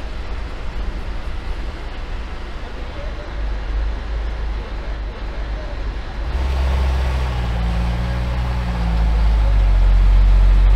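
A heavy vehicle engine running steadily with a low drone. About six seconds in the sound changes to a louder, deeper engine drone that swells again near the end.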